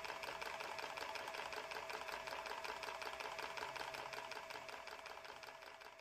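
A rapid, even mechanical clatter of about nine clicks a second from a small wooden blacksmith automaton working its hammer mechanism. It fades out near the end.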